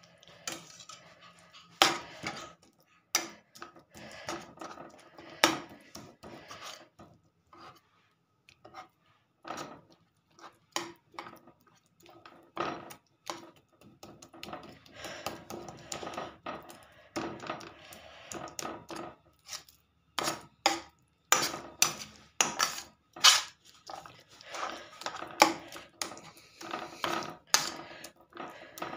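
A slotted spatula scraping and knocking on a metal frying pan in irregular strokes, as cooking dates are stirred and mashed into a paste. The strokes pause briefly about eight seconds in and come thicker and louder over the last third.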